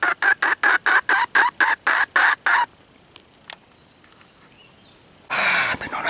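Wild chicken (red junglefowl) giving a rapid string of clucks, about seven a second, which stops abruptly a little under halfway through. A short loud noise starts near the end.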